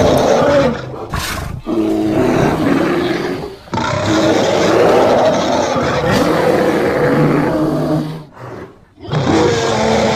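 Giant panda calling loudly in long, rough runs of pitched calls, broken by three short pauses: about a second and a half in, near four seconds, and around nine seconds.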